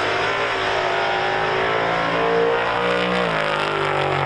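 Race car engine running hard at high revs, its pitch climbing slowly and then dropping sharply about three seconds in.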